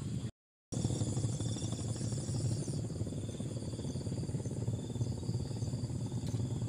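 Insects chirping steadily in thin high pulses over a constant low rumble; the sound cuts out for a moment near the start.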